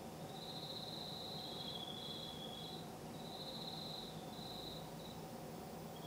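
Crickets trilling in short phrases of under a second, two at slightly different pitches overlapping for a moment. Underneath is a faint steady low hum.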